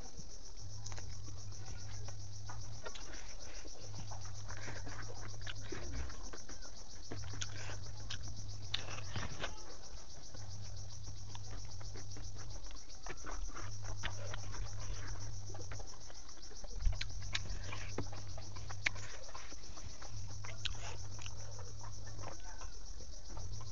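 Insects chirring in a steady, high-pitched, finely pulsing drone, over scattered wet clicks and smacks of someone chewing and eating with their fingers. Underneath, a low hum pulses on and off about every three seconds.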